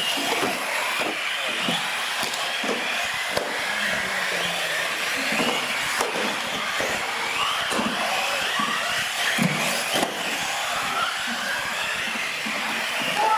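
Several radio-controlled UTV trucks racing, their motors whining and sliding up and down in pitch as they speed up and slow down, with scattered knocks and clatters.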